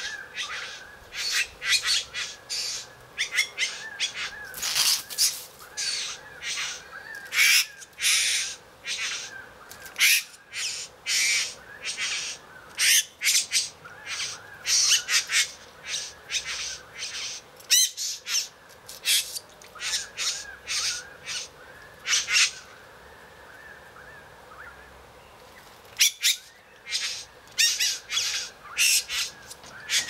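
Male satin bowerbird's courtship song: a rapid, ongoing series of harsh squawks and buzzing, mechanical-sounding churrs, pausing for a few seconds about three-quarters through before resuming.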